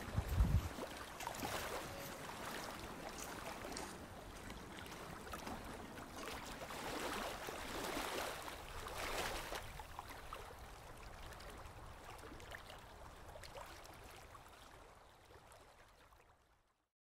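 Faint steady rushing background noise that fades away and cuts to silence near the end.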